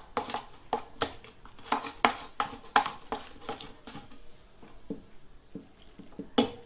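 Clear glue and baking soda activator being stirred in a bowl: a run of irregular short clicks and wet squishes, two or three a second, with a sharper click near the end.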